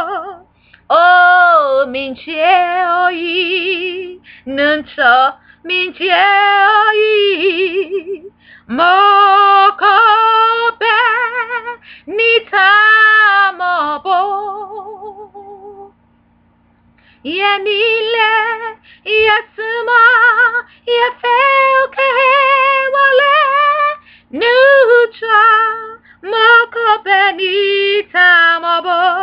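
A woman singing a hymn solo and unaccompanied, holding long notes with vibrato and sliding between pitches. She breaks off for about a second midway before the next phrase.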